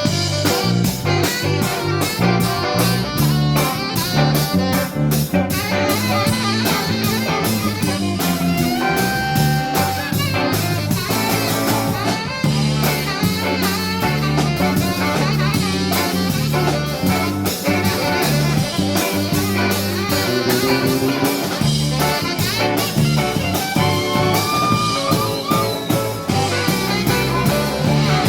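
Live band playing an instrumental passage: a guitar lead with sliding, bent notes over a pulsing bass line and a steady drum-kit beat.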